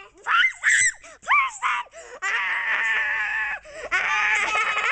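Children shrieking and squealing in high-pitched voices: a few short yelps in the first two seconds, then two long held squeals.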